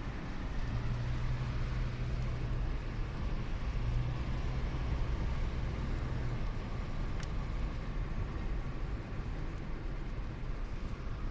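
Car cabin noise while driving: steady road and engine noise with a low hum that comes and goes, and a single click about seven seconds in.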